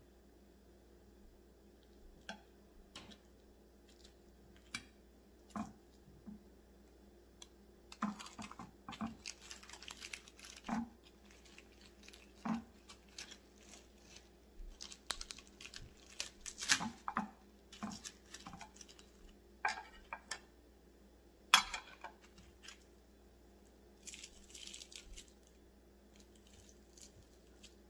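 Knife and fork cutting through the crispy fried skin of a whole deep-fried chicken: irregular crackles and crunches, with clinks of cutlery on the plate and one sharp click about two-thirds through. Near the end the meat is torn apart by hand.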